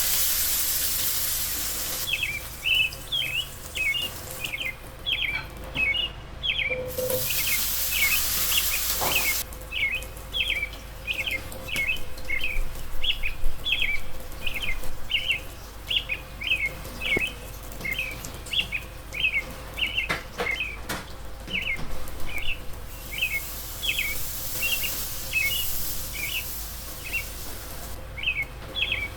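A bird chirping, short high calls repeated about twice a second, with a few stretches of steady hiss.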